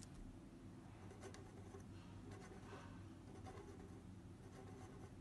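Faint scratching and tapping of a marker pen on paper as small dots are drawn, a few soft scrapes scattered irregularly over a steady low hum.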